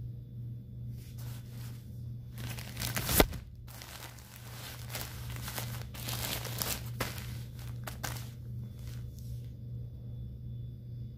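Plastic-backed adult diaper crinkling as it is handled, in irregular rustles with one sharp loud crackle about three seconds in, then dying down near the end. A steady low hum runs underneath.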